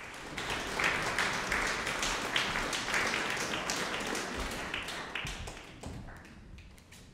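Audience applauding, the clapping thinning and dying away over the last couple of seconds.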